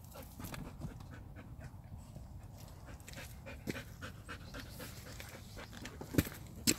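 A dog panting after a long walk, short breaths repeating steadily. Two sharp knocks come near the end.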